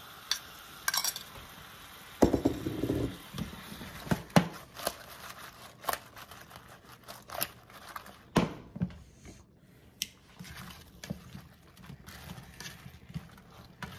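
Metal tongs clicking and scraping against a frying pan as sauce-coated fried chicken is tossed, with the pan knocked and slid on a glass-top stove. A louder scrape comes about two seconds in, then scattered light clicks.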